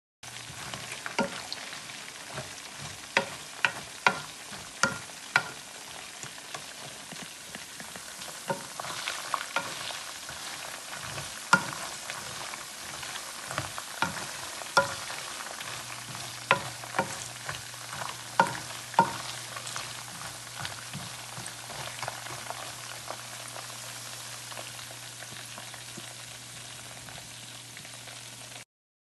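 Raw peanuts and unpeeled garlic cloves frying in oil in a pan with a steady sizzle, while a plastic slotted spoon stirs them, clicking and scraping against the pan; the clicks thin out after about twenty seconds. A low steady hum comes in about halfway through.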